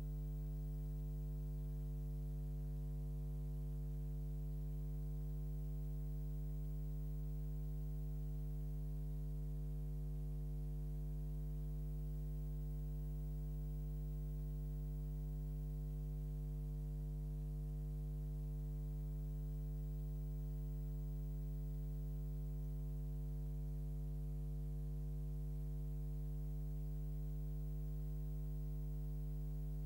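Steady electrical mains hum: a low buzz with its overtones, unchanging throughout.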